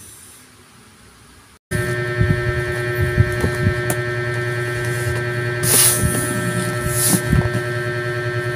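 A loud, steady electrical hum made of several constant tones, starting abruptly about two seconds in after a quiet stretch. Soft clicks sound throughout, with two short breathy rushes of noise around the middle.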